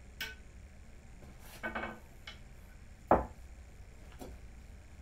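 Pool cue and balls on a billiard table: a sharp click just after the start, a short clatter about a second and a half in, another click, then a loud heavy knock about three seconds in and a fainter knock about a second later.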